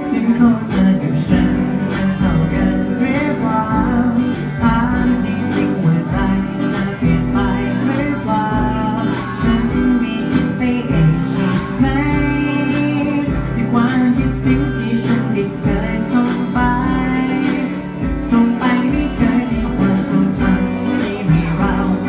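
Live band music: guitars, keyboard and drums playing a Thai pop song over a steady beat.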